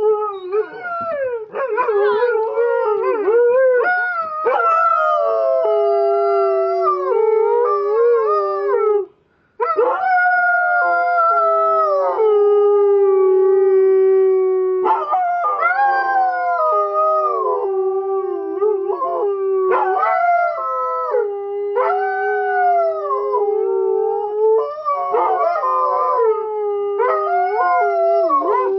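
Two Siberian huskies howling together: long held howls that slide up and down in pitch, one voice steady and lower while the other wavers above it. Both stop for a moment about nine seconds in, then start again.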